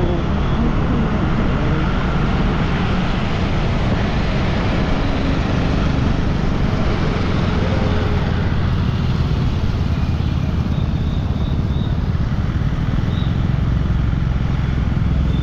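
Steady, loud vehicle rumble: a running engine with road noise, continuing without a break.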